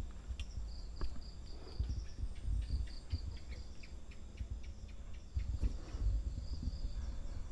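Crickets chirping at night in rapid pulsed runs, several pulses a second, with scattered soft low thumps underneath.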